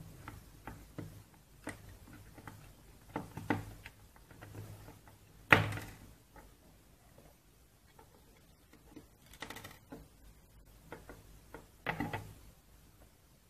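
Hard plastic parts of a PlayStation DualShock controller clicking and knocking as it is taken apart by hand. There is a sharp knock a little before halfway and a cluster of knocks near the end.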